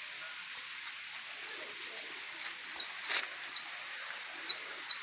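A small animal chirping: short high chirps repeating a few times a second over a steady background hiss, with a single sharp click about three seconds in.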